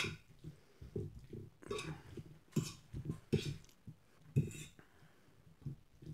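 A metal fork stirring creamy tagliatelle on a plate, scraping and clinking against the plate in irregular strokes about once a second, with soft squelches from the pasta.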